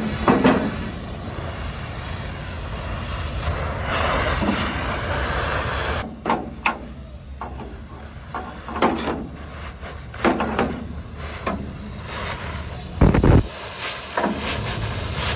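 Riveting work on a steel truck frame. For the first six seconds something runs steadily, with a louder air-like hiss about four seconds in. Then come scattered sharp metal knocks, the heaviest a deep thud about thirteen seconds in.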